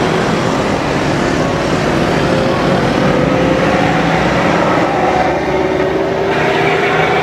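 Diesel railcar running along the track: a steady, loud mix of engine drone and wheel-on-rail noise, with a faint tone that drifts slowly in pitch.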